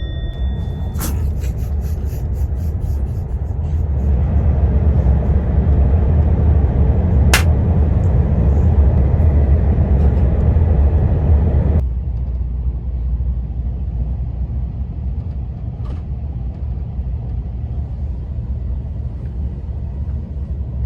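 Steady low rumble of a moving vehicle, swelling for several seconds and then dropping off sharply about twelve seconds in, with a single sharp click about seven seconds in.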